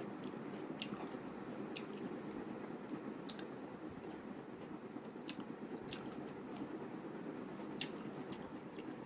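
Close-up eating of bibimbap: chewing with scattered sharp little clicks and smacks at irregular intervals, over a steady low background hum.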